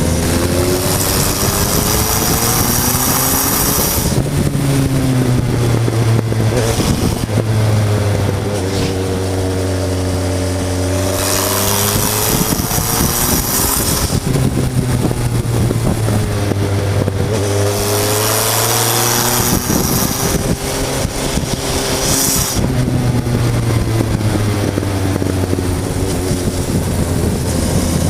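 Suzuki GSF 1200 S Bandit's inline-four engine under way, heard from the tank, its revs rising and falling several times as the bike accelerates and backs off, with bursts of rushing wind noise in between.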